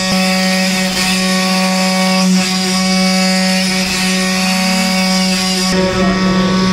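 CNC wood-carving machine's spindle running with a steady whine while the bit cuts into wood, giving a harsh hiss over the whine. The cutting hiss thins out near the end while the spindle keeps running.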